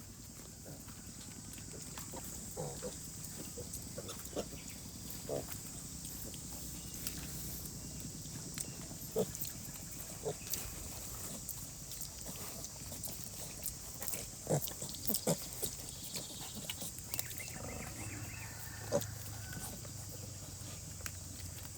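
Pigs, a sow and piglets, giving short, soft grunts every second or so over a steady hiss of rain.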